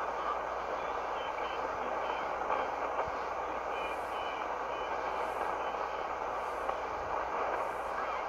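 Shortwave receiver tuned to 7.267 MHz in the 40-metre band, giving a steady hiss of band static between voice transmissions, with faint tones under the noise. In the second half, faint high blips come about once a second.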